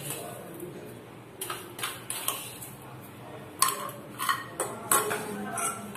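Metal spoon clinking and scraping against stainless steel bowls as salt is spooned into a bowl of grated cabbage: a series of irregular light clinks, with a pause in the middle.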